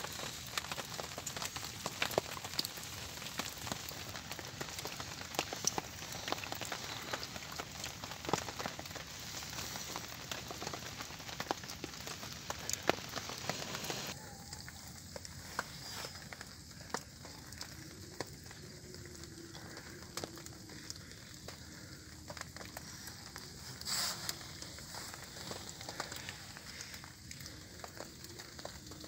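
Rain pattering steadily, with the light crackle of a small kindling fire just lit in the wet. The sound steps down quieter about halfway through.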